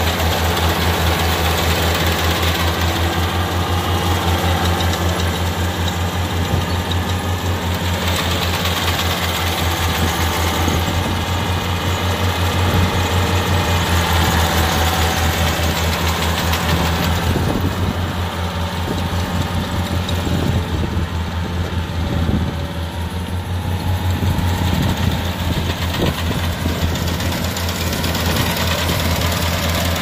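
Kubota R1-551 rice combine harvester running steadily at working speed as it cuts rice: a loud diesel engine with a low, even pulsing throb under dense machine noise.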